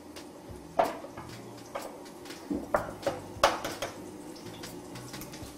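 An egg being cracked into a small ceramic bowl: several short, sharp taps and clinks of shell against the bowl.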